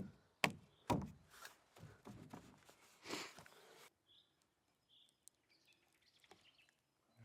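A few sharp knocks and some rustling handling noise, then quiet with two faint short high chirps, like a small bird.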